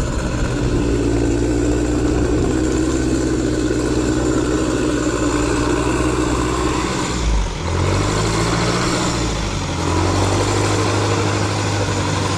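A four-wheel-drive vehicle's engine running steadily under load as the vehicle fords deep water up to its roof, its exhaust let out through a tall upright snorkel, over a rush of water. About seven seconds in the engine note dips and shifts, then runs steady again at a new pitch.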